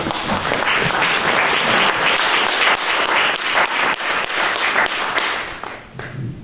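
Audience applauding, with a dense patter of many hands clapping that fades out near the end.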